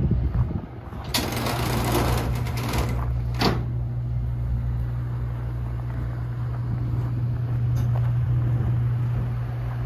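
Ford F-550's V10 gas engine idling with a steady low hum. A brief rustling rush comes about a second in, and one sharp click follows at about three and a half seconds.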